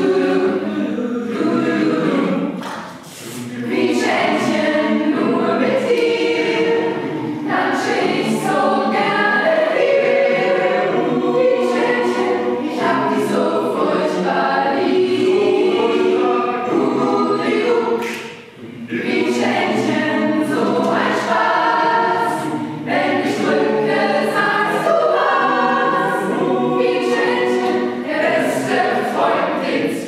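Mixed choir of adults and children singing in parts, with brief breaks between phrases about three seconds in and again just past halfway.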